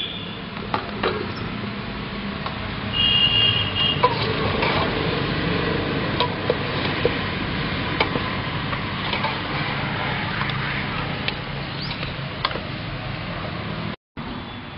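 Watery masala gravy in a large aluminium pot boiling hard over a wood fire, a steady bubbling hiss, while a long metal ladle stirs and knocks against the pot with scattered clicks and a brief metallic ring about three seconds in.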